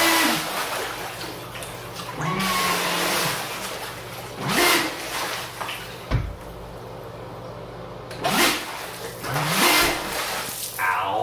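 An RC jet boat's 4076 2000KV brushless motor spins its M-Jet 30 3D-printed jet drive in several short throttle bursts, with the boat held still in the water. Each burst is a rising then falling motor whine over a rush of churning water thrown out by the jet.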